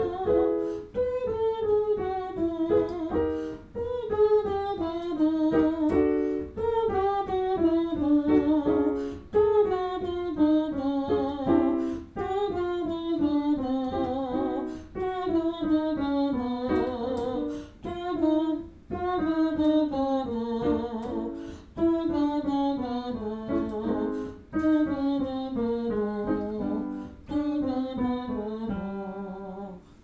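A woman's voice sings a semi-occluded vocal tract warm-up. It glides down in pitch about every two and a half seconds, and each repeat starts a little lower than the last.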